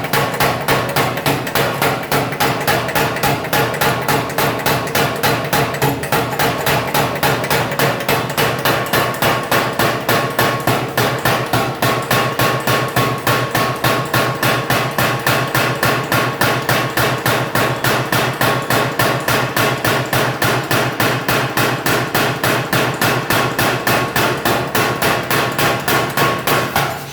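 Pneumatic forging hammer pounding in a rapid, even rhythm of several blows a second, with a steady metallic ring under the strikes.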